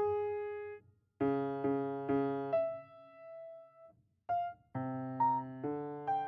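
Twelve-tone serial music played on piano: separate chords and single notes struck and left to ring out, with short silent pauses between phrases.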